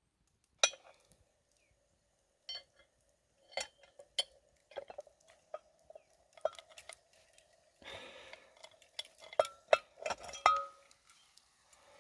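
Metal clinking against a cast-iron Dutch oven: irregular sharp knocks, each followed by a short ringing tone, the loudest just after half a second in, with a brief scrape about eight seconds in.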